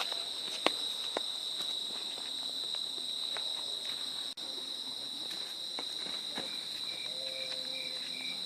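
Steady, high-pitched chirring of a cricket chorus, with a few sharp clicks or knocks in the first second and a half, the loudest right at the start.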